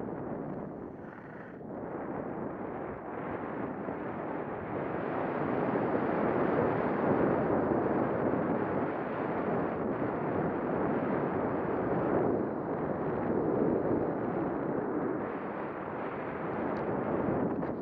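Wind rushing over a Contour ROAM action camera's microphone during a ski descent, mixed with skis sliding on packed snow. A steady rushing noise that dips briefly about a second in and grows louder from about five seconds on.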